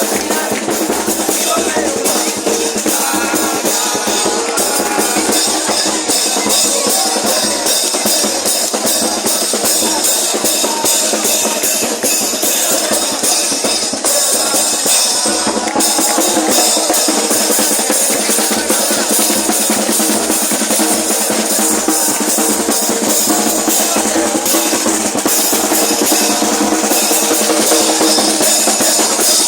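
Uruguayan murga drum section (bombo bass drum, redoblante snare and platillos cymbals) playing a steady, driving beat without a break.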